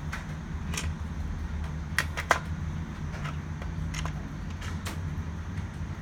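A steady low hum with scattered sharp clicks and taps, about ten of them at irregular spacing, the loudest a pair a little after two seconds in.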